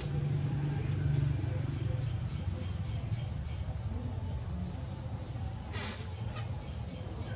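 Steady low hum of a potter's wheel running, with a faint high chirp repeating about three times a second and a brief click near six seconds in.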